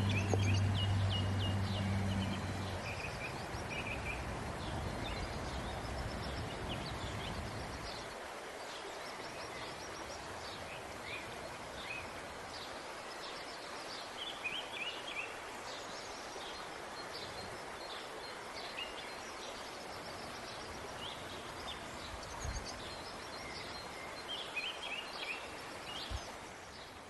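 Small birds chirping repeatedly over a steady background hiss. A low hum stops about three seconds in.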